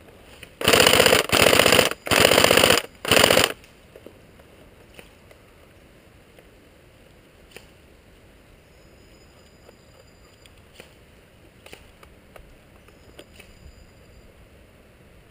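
Airsoft gun firing four short bursts of fully automatic fire in quick succession, close and loud, over about three seconds; then only faint scattered clicks.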